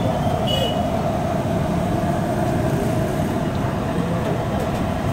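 Steady street-stall noise: a low traffic rumble and a constant hum, over aloo patties frying in shallow oil on a large flat iron griddle. A short high tone sounds about half a second in.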